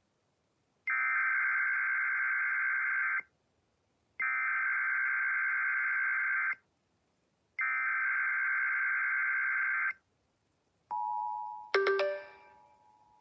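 Emergency Alert System SAME header: three identical bursts of screechy digital data tones, about two seconds each with a one-second pause between. About a second after the last burst the EAS two-tone attention signal begins, a steady dual-pitched tone. A bell-like chime strikes over it shortly after.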